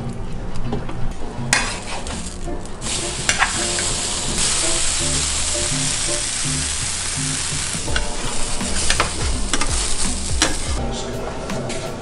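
A slice of egg-soaked bread frying as French toast in a nonstick pan, sizzling steadily from a couple of seconds in and fading near the end, over background music.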